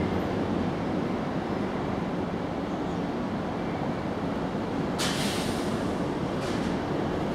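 Steady low rumbling background noise. A sharp hiss comes about five seconds in and lasts about half a second, and a fainter one follows about a second and a half later.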